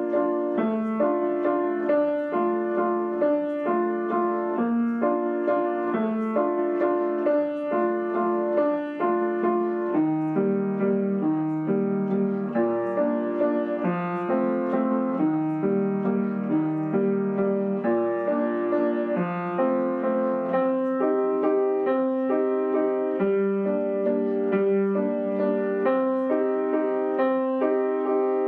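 Piano playing a gentle melody in three-four time. The left hand plays a bass note followed by two repeated chords in each bar, with the sustain pedal held down.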